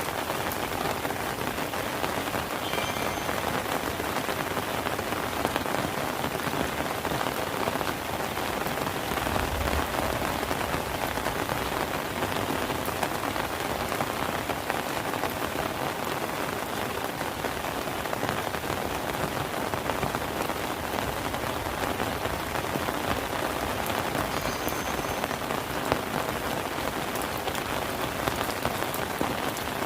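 Steady rain falling, an even wash of noise dotted with the ticks of individual drops.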